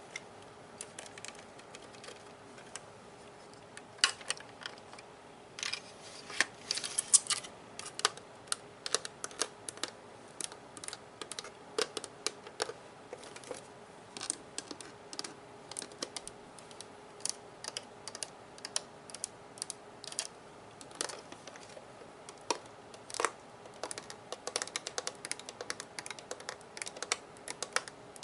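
Fingers tapping and clicking on the hard plastic body of a Nerf gun: quick, irregular runs of small sharp taps.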